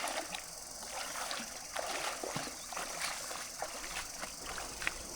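Clear river water trickling over stones: a steady rush with frequent small splashes and drips.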